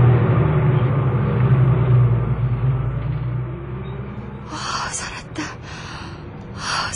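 Bus engine sound effect rumbling low and steady, fading away after about three seconds. Then two short hissing noises come about a second and a half apart.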